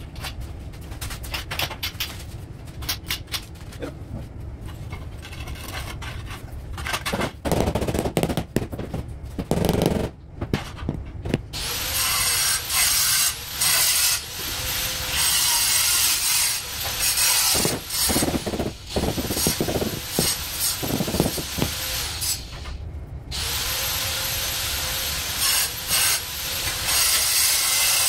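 Scattered scraping and tapping for the first ten seconds or so. Then a high-pitched power tool spins up and runs steadily, stops briefly about 22 seconds in, and spins up again.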